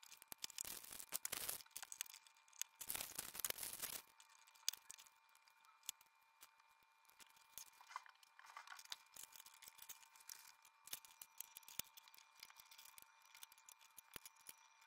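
Rustling and clattering of small parts and wires being handled for about the first four seconds, then only scattered faint clicks over a faint steady high hum.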